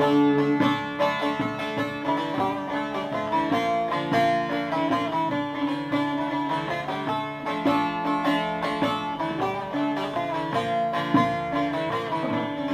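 Instrumental interlude of a Turkish Sufi hymn: a plucked string instrument plays a quick melody of many short notes over a steady low drone.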